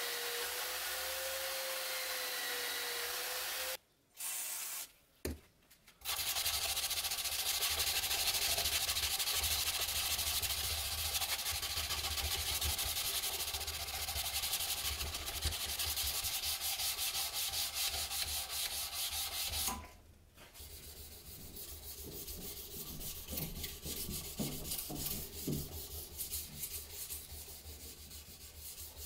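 An electric motor with a sanding disc runs steadily for the first few seconds. After a short gap, a steel knife blade clamped in a vise is hand-sanded with an abrasive block: continuous rapid rubbing strokes, quieter and more uneven in the last third.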